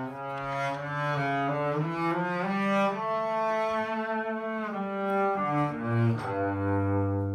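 Double bass played with the bow: a slow melody of long held notes, with a low note sustained near the end.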